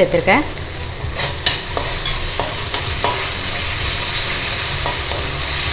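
Sliced onions sizzling in hot oil in a stainless steel kadai while tomato sauce is stirred in with a metal slotted spoon. A steady frying hiss runs under irregular scrapes and clicks of the spoon against the pan.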